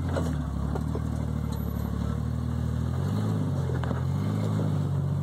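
Jeep Grand Cherokee ZJ engine running at low revs while rock crawling, its pitch rising a little about three seconds in as it takes more throttle, with a few light clicks over it.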